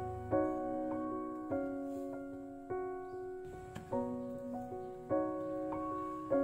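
Background music: gentle solo piano playing soft chords, a new chord struck about every second and a quarter.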